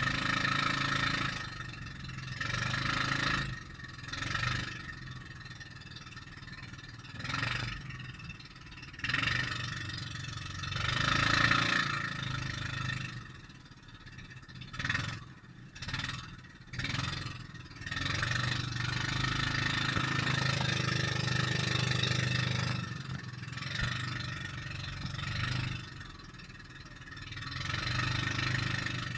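Honda 16 HP double engine of an outrigger boat running steadily under way, a low drone. Rushing wind and water noise swells and fades over it every few seconds.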